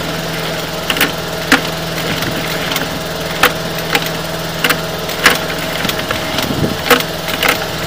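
Sharp irregular clacks, roughly one a second, as a sewer inspection camera's push-rod cable is fed into a drain pipe, over a steady low hum.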